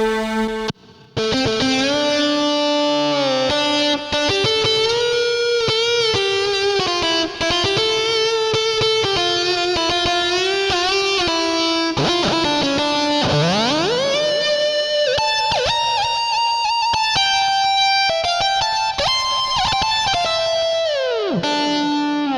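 Korg Krome keyboard playing a guitar-like plucked-string lead patch from an ethnic Balkan/Turkish sound pack: a fast melody with bent notes, a long upward slide about two thirds of the way through and a downward bend at the end.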